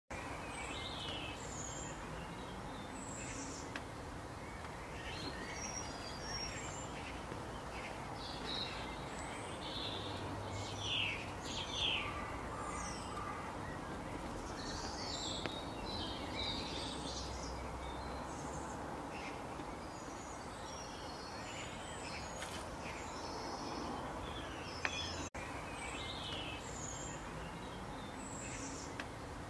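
Small birds chirping and calling, many short scattered chirps and trills, over a steady outdoor background hiss. A single sharp click with a momentary dropout comes late on.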